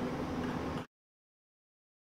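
Faint room sound that cuts off abruptly less than a second in, leaving complete digital silence.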